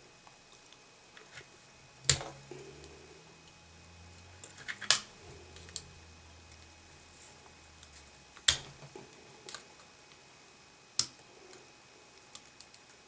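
Sharp clicks and light taps of small hand tools working on a headphone plug's metal contacts while trying to pull out a channel conductor: four louder clicks a few seconds apart with fainter ticks between.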